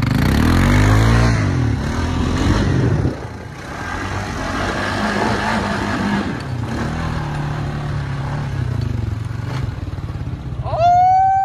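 ATV (four-wheeler) engine revving up and down as the quad spins and drives across loose dirt. Near the end a loud, high-pitched cry rises over it.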